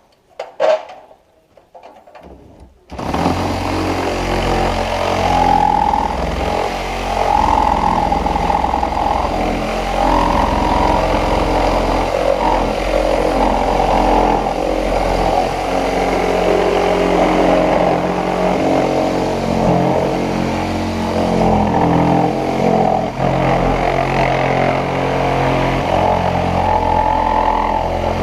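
Tractor engine starting about three seconds in, then running steadily with small changes in engine speed.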